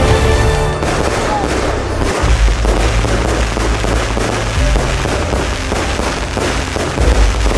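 Aerial fireworks going off in quick succession, with bangs and crackling, mixed with background music that carries held low bass notes.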